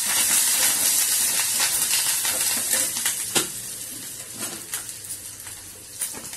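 Tempering of mustard seeds, cumin, garlic and curry leaves sizzling in hot oil in a steel kadai while a steel spoon stirs and scrapes the pan. The sizzle is strongest at first and eases off over the last few seconds, with a sharp spoon knock on the pan about midway.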